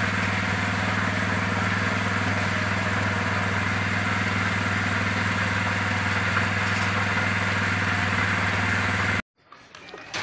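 A small engine running steadily at idle, an even hum with no change in speed, that cuts off suddenly about nine seconds in; quieter, scattered site sounds follow.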